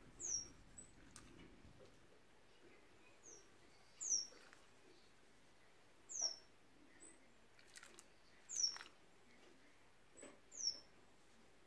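A bird calling: short, high-pitched notes that fall steeply in pitch, five of them at intervals of about two seconds.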